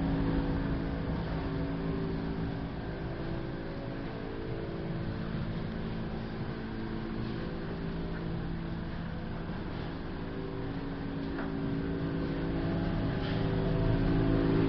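A steady low mechanical hum from a running motor, holding one pitch throughout. It fades somewhat in the middle and swells back up near the end.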